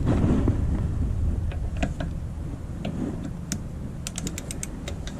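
Ratchet of a click-type torque wrench on a car's lug nuts. A few separate clicks are followed, near the end, by a quick run of ratchet clicks. The nuts are already at the 83 ft-lb spec from the impact gun.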